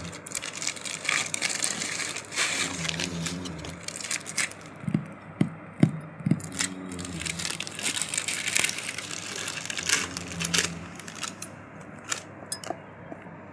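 Packaging being handled: crinkling and rustling with a run of small clicks and a few sharp taps in the middle.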